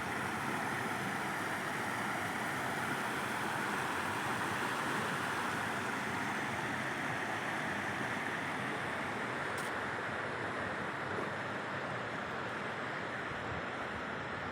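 A waterfall's falling water rushing steadily, a dense even roar of water with wind buffeting the microphone.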